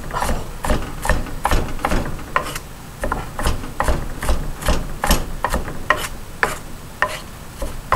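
Kitchen knife chopping onion finely on a wooden cutting board: a quick run of knocks of the blade on the wood, about three a second.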